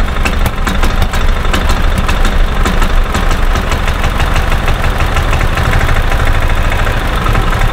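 2000 Club Car DS golf cart's single-cylinder Kawasaki FE290 gas engine running with the throttle nearly closed, almost smooth but with uneven popping firing strokes. The engine is misfiring and backfiring into the carburetor on a weak spark, which the owner puts down to a failing ignition coil.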